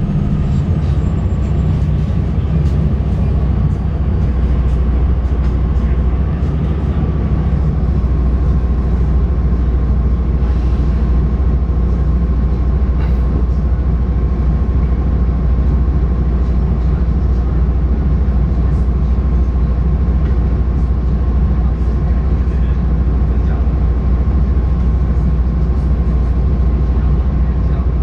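Interior of an articulated city bus standing in traffic: a steady low engine rumble at idle, with a faint high whine that drifts down and settles to one steady pitch in the first few seconds.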